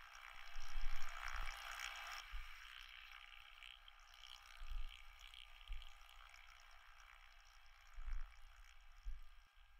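A soft hissing, water-like rush of noise, loudest in the first two seconds and then fading, with a few dull low thuds scattered through it.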